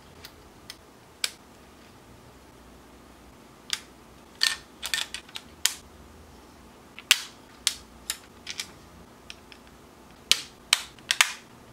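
Sharp, irregular clicks and taps of small plastic model parts on a Kato N-scale island platform being handled and pressed into place, with bunches of quick clicks around the middle and near the end.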